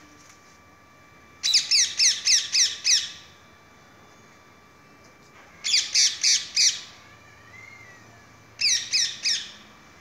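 Green parrot squawking in three quick runs of harsh calls, about four a second: six calls, then five, then four.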